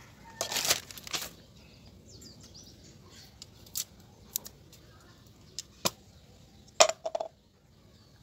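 Aerosol carburetor and choke cleaner sprayed in two short hissing bursts about half a second and a second in, followed by scattered light clicks and knocks of handling the can and parts.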